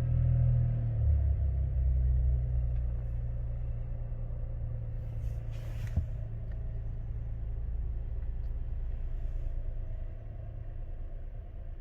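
Chevrolet Traverse's 2.5-litre turbocharged four-cylinder engine running with a low, steady rumble. It is loudest for the first few seconds, then eases down and holds lower. A brief hiss and a single click come about halfway through.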